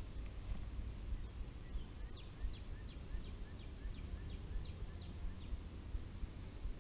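A bird singing a run of about ten quick down-slurred notes, about three a second, starting about two seconds in, over a steady low rumble.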